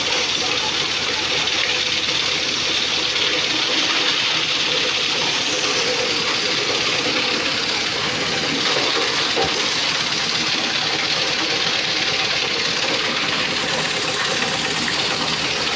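Plastic grinder driven by a stationary engine, running steadily while it shreds plastic scrap: a dense, even chopping clatter of plastic over the engine's running note.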